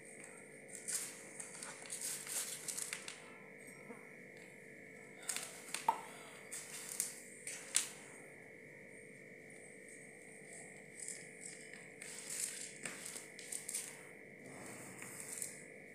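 Hands rubbing oil into flour in a steel plate, fingers scraping and scratching across the metal in spells of short strokes with pauses between, and a sharp click about six seconds in, over a faint steady hum.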